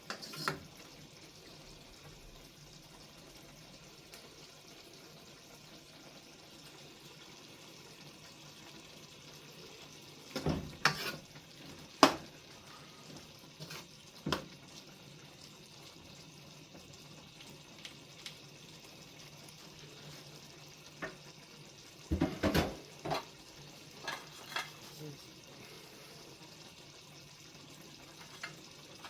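Chicken back and vegetables cooking with a soft, steady sizzle over a low hum, broken by scattered knocks and clatters of a utensil against the pot, coming in clusters around the middle and about three-quarters through.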